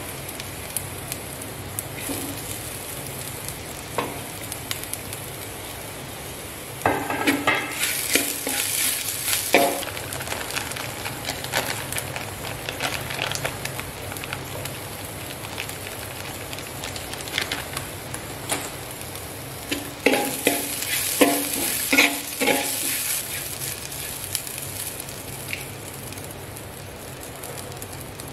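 Chillies and curry leaves frying in oil in a metal pan, with a steady sizzle, while a metal spatula stirs and scrapes against the pan. There are two spells of louder clattering stirring, about a quarter of the way in and again toward the end, as grated coconut and turmeric are worked into the tempering.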